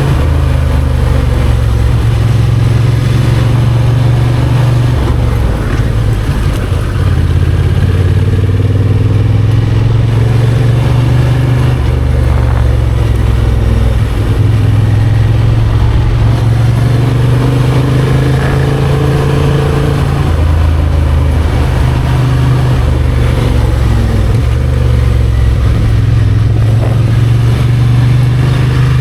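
Motorcycle engine running steadily under way, its pitch rising and falling gently with the throttle.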